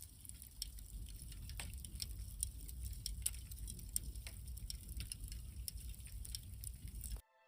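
Wood campfire crackling: irregular sharp pops and snaps over a steady low rumble, cutting off abruptly near the end.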